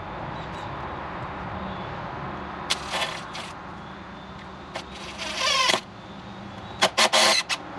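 A shovel scraping and digging into dirt and stone, in several short harsh strokes, the longest about halfway through, over a steady low hum.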